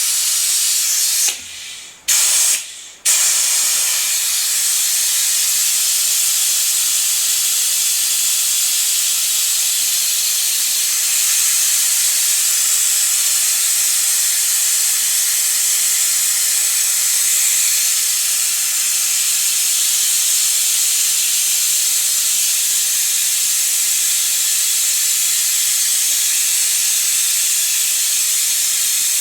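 Pneumatic vacuum brake bleeder hissing steadily on shop air as it draws brake fluid and air out of an ATV's front brake system. The hiss cuts out twice briefly in the first three seconds, then runs on without a break.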